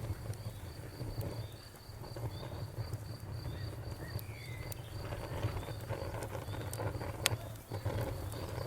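Campfire burning with a low rumble and scattered crackles and pops, one sharper pop about seven seconds in. A cricket chirps steadily at a high pitch, about three chirps a second.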